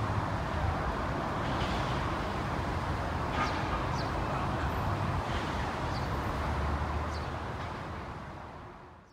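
Steady outdoor noise of road traffic, with a few short bird chirps now and then; the sound fades out near the end.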